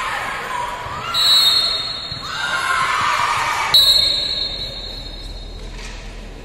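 High-pitched shouts and cheers from a volleyball crowd in a large hall, with two long referee's whistle blasts: one about a second in, and a louder one that starts sharply near four seconds in.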